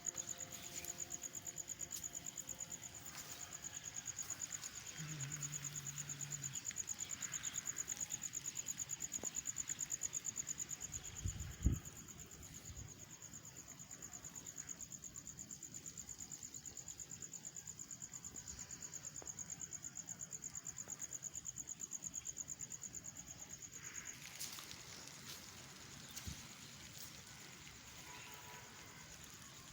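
An insect trilling steadily on one high pitch with a fast, even pulse, stopping about 24 seconds in. A single low thump comes a little before halfway.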